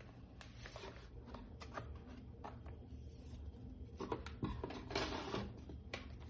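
Faint handling of a vinyl record's cardboard sleeve and paper insert: scattered light rustles, scrapes and taps, a little busier about two-thirds of the way through.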